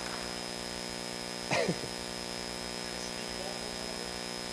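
Hall room tone in a pause of speech: a steady electrical hum with a faint high whine. One short sound falling in pitch comes about one and a half seconds in.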